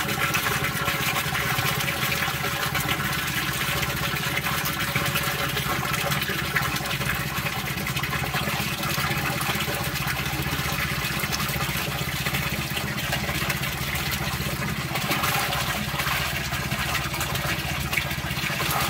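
Water gushing from a plastic pipe into a round concrete tank, splashing into the water already in it, with the steady hum of an engine running underneath.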